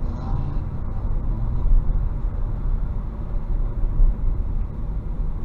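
Car driving, with a steady low road and engine rumble heard from inside the cabin.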